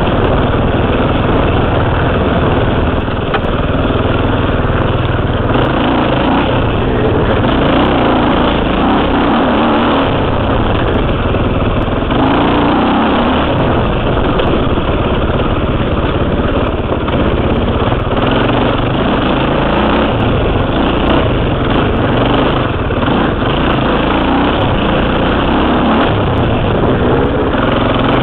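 KTM 300 two-stroke dirt bike engine running loud and continuously under way, its note shifting up and down with the throttle.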